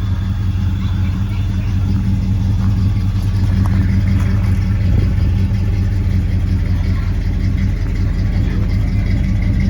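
A 1971 car's engine idling steadily, a deep, even hum with no revving.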